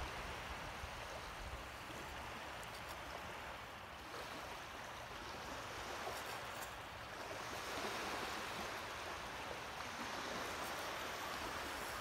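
Steady rushing of surf along the shore, swelling slightly about eight seconds in.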